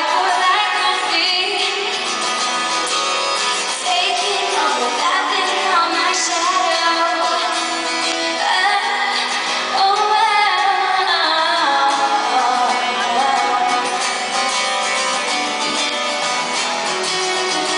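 A woman singing a song live with guitar accompaniment at a sound check.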